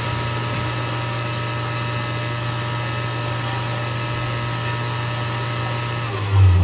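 Press machine running with a steady low motor hum and a few steady whining tones above it. Near the end the sound swells louder and drops lower in pitch.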